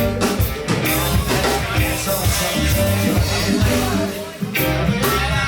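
Reggae band playing live at a sound check, with bass, drums and guitar. The band drops back briefly about four seconds in.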